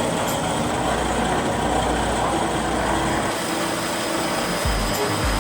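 Stone straight-edge polishing machine running, its motor-driven polishing heads grinding along a slab edge with a steady dense noise. A low pulsing comes in near the end.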